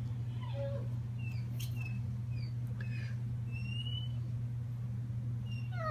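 A steady low machine hum, with a few faint short high chirps. Near the end a domestic cat begins a meow that falls in pitch.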